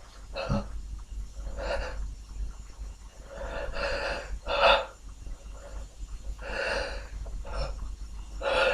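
A person sniffling and catching breath, about seven short, sharp breaths in through the nose and mouth at uneven intervals, the loudest a little past the middle.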